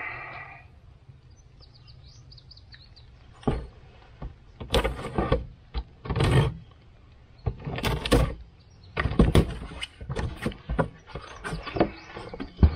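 A package being opened and its contents handled: irregular bursts of rustling and scraping, coming every second or so. Faint bird chirps a few seconds in.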